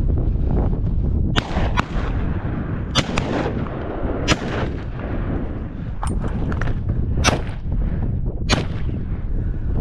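Shotgun shots at quail: about seven sharp reports at irregular intervals, two of them in quick succession early on, over a steady low rumble.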